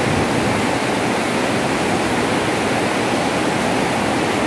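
Tidal river water rushing and churning through a sluice gate opening in a steady torrent. The gate leaf is broken and will not close, so the high tide pours through unchecked.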